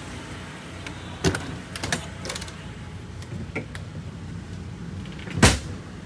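Motorhome entry door being opened and climbed through: a string of sharp latch and handle clicks, then one loud thump near the end, over a steady low hum.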